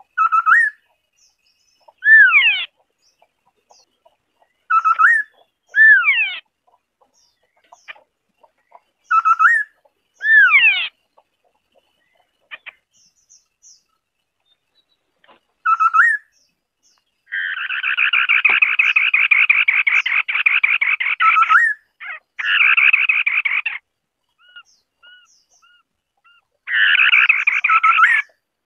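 White-browed scimitar-babbler singing: short whistled phrases of a few sweeping notes every few seconds, then a long, fast chattering rattle about 17 seconds in and two shorter rattles near the end.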